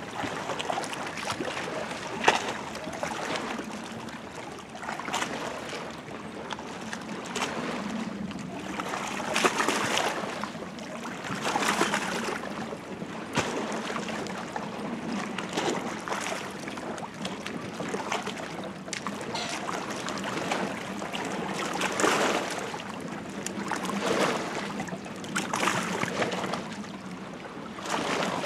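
An Irish Setter wading in shallow lake water, its legs splashing and sloshing in irregular bursts every two to three seconds over steadily lapping water, with one sharp click about two seconds in.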